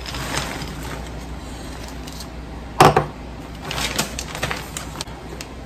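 Butterscotch chips pattering out of a bowl into a plastic vacuum-sealer bag, then one loud clunk a little under three seconds in, and the plastic bag crinkling as it is handled.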